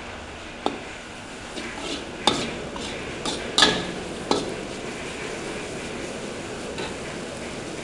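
Yellow noodles, bean sprouts and sawi stir-frying in a hot wok: a steady sizzle, with a spatula scraping and knocking against the wok several times, loudest around the middle.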